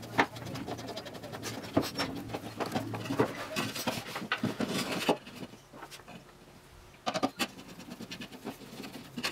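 MDF rib pieces being handled and pushed into place in the gantry frame: irregular wooden knocks and taps, busiest in the first few seconds, then a short quieter spell before a few more knocks.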